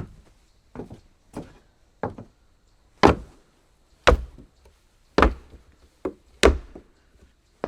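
Footsteps on a wooden floor: slow, uneven steps, about one a second, each a sharp knock of a shoe on wood. The steps grow louder from about three seconds in.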